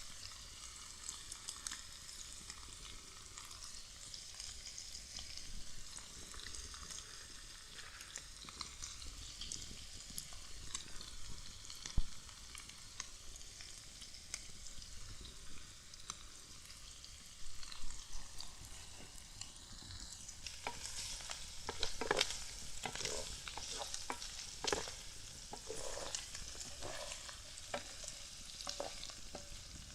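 Shrimp sizzling in butter in a clay casserole pot: a steady frying hiss. A single sharp click comes about twelve seconds in. In the last third, a utensil stirring and scraping against the pot adds a run of short knocks and scrapes over the sizzle.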